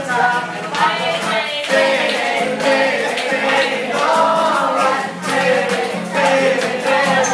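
Live song: a voice singing over a strummed acoustic guitar.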